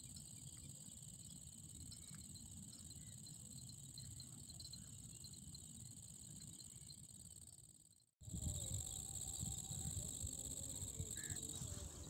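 Steady, high-pitched chirring of field insects such as crickets, with a low rumble underneath. The sound breaks off briefly about eight seconds in and resumes, the rumble heavier afterwards.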